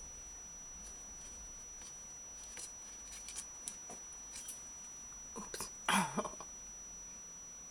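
Baby striped skunk's claws clicking and scraping on the wire door of a plastic pet carrier as it climbs, a few scattered ticks. About six seconds in there is a louder thump and scuffle as it comes down into the fleece bedding.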